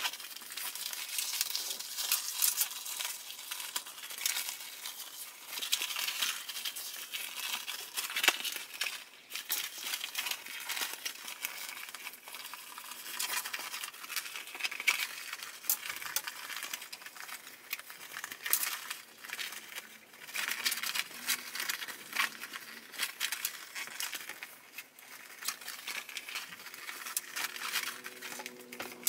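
Vinyl-and-fabric pouch being turned right side out by hand: irregular crinkling and rustling as the stiff vinyl is squeezed and folded through, with many small crackles.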